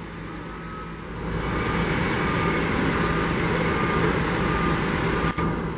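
Heavy diesel engines of a crawler bulldozer and the mud-stuck tanker semi truck it is pushing, growing much louder about a second in as they work under full load. A reversing alarm beeps steadily, a bit more than once a second.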